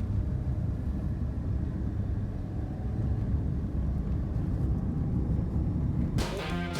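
Car driving along a road: a steady low rumble of engine and tyre noise. Guitar music comes in near the end.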